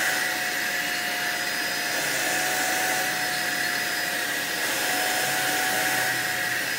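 Vacuum cleaner running steadily, a rushing noise with a steady whine, its nozzle held on a cat's belly fur. It cuts off suddenly at the end.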